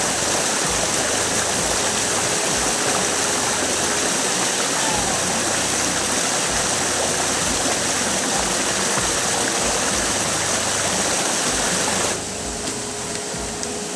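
Rushing water of a rocky forest stream, a steady hiss that gets quieter about twelve seconds in.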